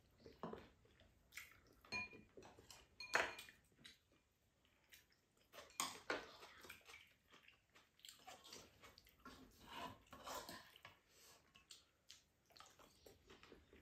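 Quiet mealtime sounds: spoons and chopsticks clinking now and then against ceramic bowls and a pan, with soft chewing between. The loudest clink, about three seconds in, rings briefly.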